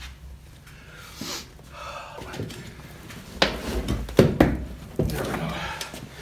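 Knocks and clinks of tire-mounting work on a motorcycle front wheel, with metal tools striking the rim as the bead of a mousse-fitted tire is forced over it. There are a few sharp knocks in the second half.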